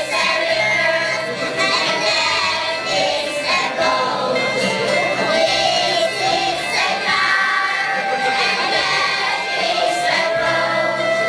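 A children's choir singing a song together with guitar accompaniment.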